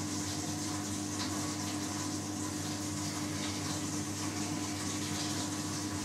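Steady hum of a running gas boiler and its central-heating circulating pump, with water moving through the system.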